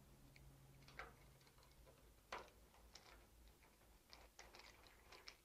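Faint, scattered clicks and taps of parts being handled as the carriage-belt tension assembly is fitted back onto an HP Designjet 1050C plotter, the loudest a little past two seconds in and several more close together near the end.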